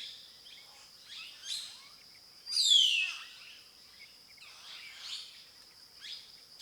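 Wild birds calling: a series of short falling chirps, with one louder call sweeping downward in pitch about two and a half seconds in, over a steady faint high-pitched hum.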